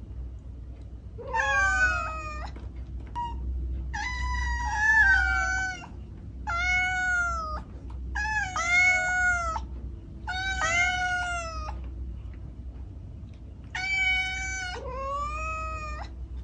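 Kitten meowing repeatedly: about seven high, drawn-out calls, each about a second long and rising then falling in pitch, over a low steady hum.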